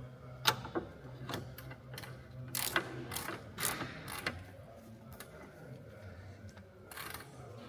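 Torque wrench ratcheting in strokes as a control-arm bolt is tightened to 106 newton metres, giving a string of sharp, irregular clicks that thin out after about four seconds.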